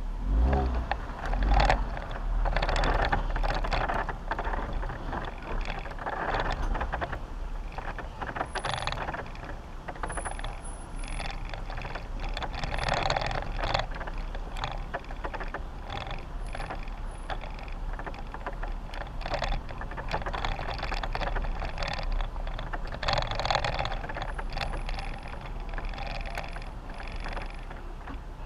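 Jeep Wrangler driving over a rough dirt trail: a steady low engine and drivetrain rumble with frequent irregular clattering and rattling over the bumps.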